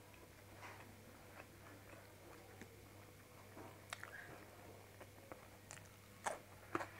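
Faint chewing and wet mouth sounds of someone eating with the fingers, then a few sharp crisp bites into a fresh cucumber slice in the last couple of seconds, the two loudest about half a second apart.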